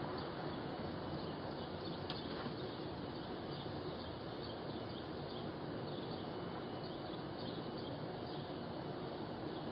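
Steady hiss of outdoor background noise picked up by a doorbell camera's microphone, with faint bird chirps scattered through it and a single small click about two seconds in.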